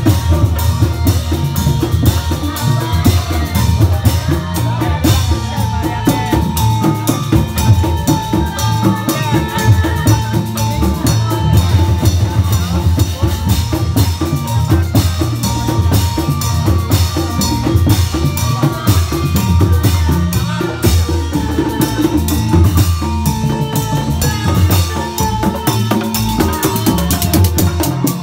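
Reog Indramayu band music played loud through large loudspeakers: fast, busy drumming over a heavy bass line, with a sustained keyboard melody on top.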